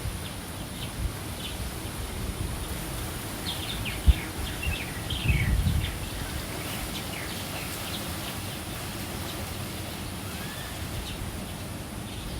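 Small birds chirping in a quick run of short, falling calls, over a steady outdoor background with brief gusts of wind on the microphone and a single knock about four seconds in.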